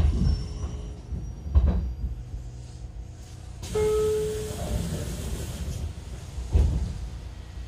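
Inside a JR Kyushu 813 series electric train car at a station stop: a low rumble with three heavy low thumps, one at the start, one about a second and a half in and one near the end. About halfway through a hiss begins, with a short tone at its onset.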